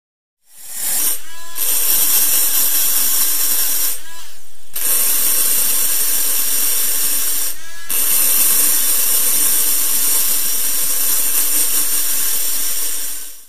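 Electric micro-motor rotary grinder grinding a Peugeot 103 moped cylinder, a steady high hissing whirr as the burr cuts the metal. It eases off briefly three times, about a second in, around four seconds in and near eight seconds, and at each pause a whine slides in pitch as the tool slows and spins back up.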